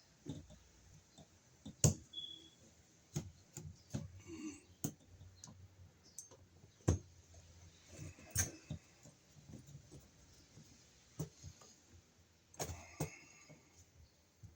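Irregular clicks, taps and knocks of small screws, washers and a screwdriver being handled while fitting a box extension to a shallow electrical outlet box, with a few sharper knocks spread through.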